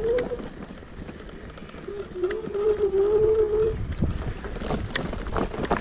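Kugoo G2 Pro electric scooter's hub motor whining as it is ridden, a wavering tone that cuts out about half a second in, returns about two seconds in and fades again before four seconds. Under it runs a low rumble from the ride over rough ground, with scattered clicks and knocks.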